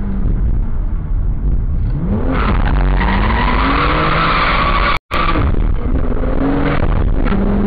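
Car engine accelerating hard, its pitch climbing several times over, with a loud rushing noise in the middle stretch. The sound cuts out for an instant about five seconds in.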